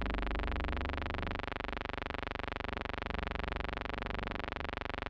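A steady buzz with many evenly spaced overtones, its low part shifting slightly about a second and a half in and again near the end.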